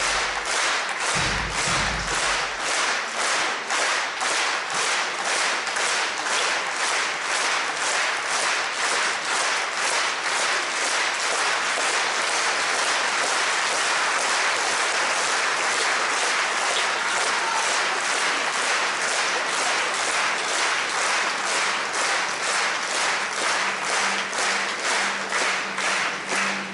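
Concert audience clapping in unison, about two claps a second, merging into continuous applause around the middle and falling back into rhythmic clapping for the last few seconds. A few low thuds sound in the first two seconds.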